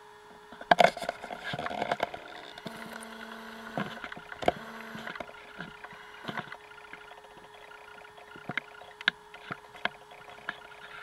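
Scattered wooden knocks and clicks of a canoe paddle against the hull, the loudest cluster about a second in and single sharper taps later, over a faint steady hum.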